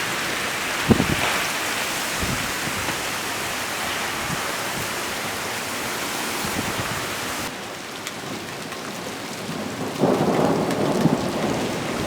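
Steady heavy rain hissing, with a single thump about a second in. A low rolling rumble of thunder builds about two seconds before the end.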